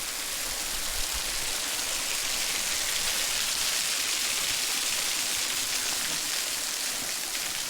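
Waterfall rushing: a steady hiss of falling water, swollen by recent rain.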